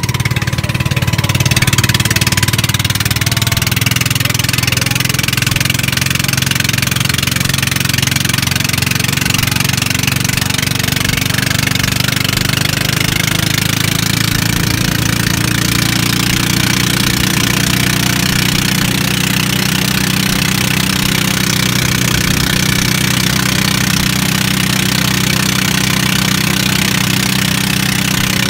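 Small outrigger fishing boat's engine running at a steady cruising speed, with water and wind rushing past the hull.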